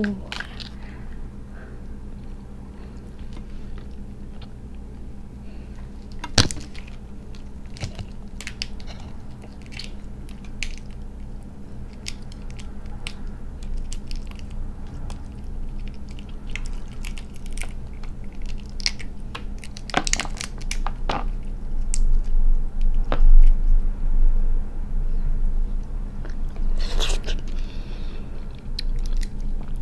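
A cooked crab's shell being cracked and pulled apart by hand: sporadic crunches and sharp cracks of shell, with a louder burst of cracking about two-thirds of the way in.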